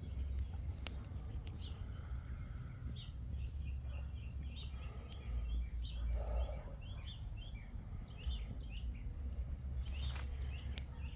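Small birds chirping over and over in quick short notes, over a steady low rumble, with a few sharp clicks scattered through.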